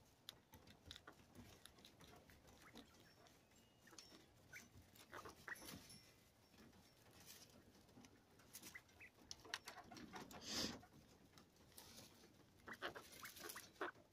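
Faint, scattered taps and shuffling from coturnix quail moving in hay and pecking around the cup drinkers of a wire cage, with one brief louder noisy sound about ten and a half seconds in.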